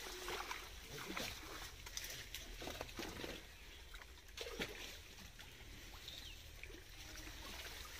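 Faint, scattered small splashes and water sloshing in shallow pond water, from fish caught inside a drawn-in fishing net.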